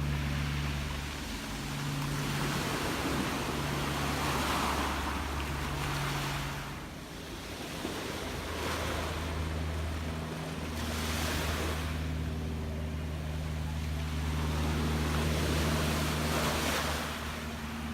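Gentle waves washing onto a shore, the wash swelling and falling back every few seconds. A steady low hum runs underneath.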